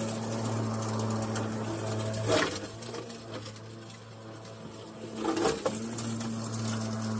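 Milwaukee M18 Fuel 21-inch battery lawn mower running with a steady blade hum, with loud cracks about two and a half seconds in and again near five and a half seconds as the blade chews through pine cones and sticks. The hum dips briefly under each load, but the motor does not bog down.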